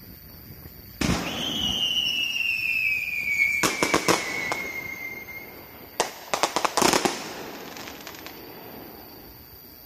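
Aerial fireworks: a loud bang about a second in, then a whistle falling slowly in pitch for about four seconds, a few sharp cracks near the middle, and another bang followed by a quick string of cracks.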